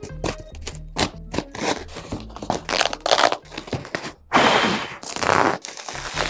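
Knife slicing through packing tape and corrugated cardboard in a run of sharp cuts and scrapes, then cardboard tearing in two long rips about halfway through. Bubble wrap crinkles near the end.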